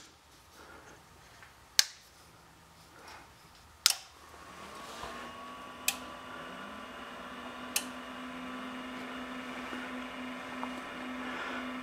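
QSC PLX power amplifiers being switched on one after another. Sharp clicks of the power switches come about every two seconds, then a steady hum and cooling-fan noise build up as the amps come on.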